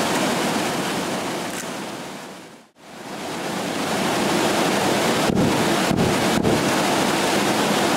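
Steady rush of a waterfall and river. About five seconds in come three dull low thumps, roughly half a second apart: an AR-15 fired with its muzzle under water.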